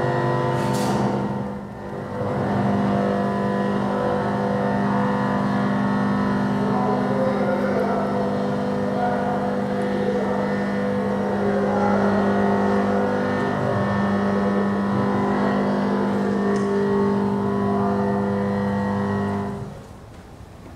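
Computer-generated sound of an interactive installation that turns a live video image into sound through a Max/MSP/Jitter patch, in its early version of the code: a dense drone of many steady electronic tones whose pitches shift as the image changes. It dips briefly about two seconds in and cuts off suddenly near the end.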